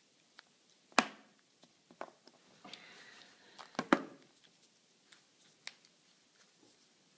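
Hands handling a Kinder Surprise egg and its yellow plastic toy capsule: a few sharp clicks and knocks, the loudest about a second in and a pair just before four seconds, with faint rustling between.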